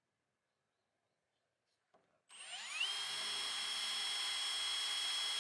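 Cordless drill boring a pilot hole through an aluminium canopy panel: about two seconds in it spins up with a quick rising whine, then runs steadily at full speed.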